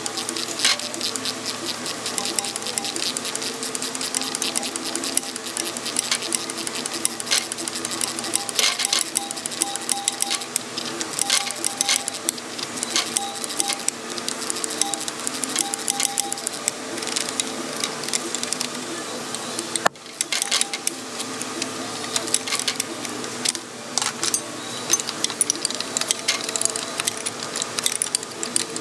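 Hand ratchet clicking in fast, repeated short strokes as a stubborn transmission-to-engine bolt is worked loose, over a steady hum.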